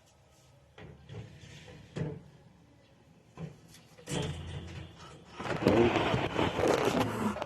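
A few separate knocks and clatters, then about two seconds of loud, dense rustling and fluttering near the end, as a young pigeon is handled.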